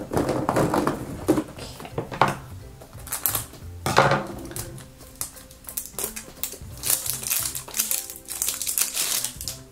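Crinkling plastic wrapper and clicking hard plastic as a blind-bag toy capsule is handled and its wrapping is peeled off, in several short crackling bursts over background music.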